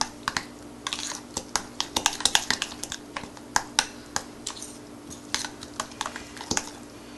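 A spoon stirring thick semolina batter in a bowl, clicking against the bowl's sides in irregular sharp clicks, a few a second.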